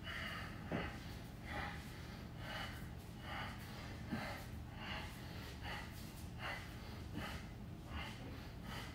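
A man breathing hard in short, sharp puffs, just over one a second, in time with the twists of a bodyweight Russian twist: the breathing of sustained ab exertion.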